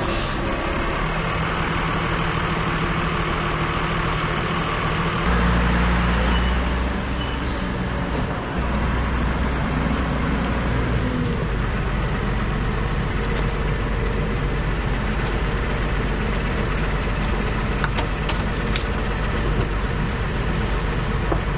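Farm machinery engine running steadily, its low note stepping up about five seconds in and shifting again a few seconds later.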